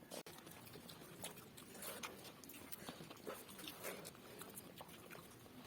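Faint eating sounds: people eating rice and fish curry by hand, with soft chewing and small, scattered mouth clicks.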